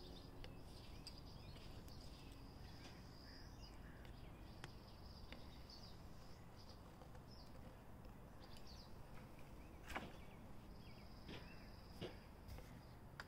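Near silence: faint outdoor ambience with a steady high buzz that drops in and out, scattered faint chirps, and two soft clicks about ten and twelve seconds in.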